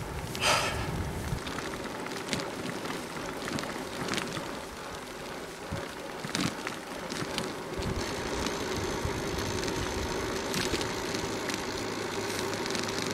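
Bicycle riding along a lane: steady tyre rolling noise and wind on the microphone, with a few light knocks and rattles over the surface.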